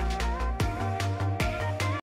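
Electronic outro music with a steady pulsing beat.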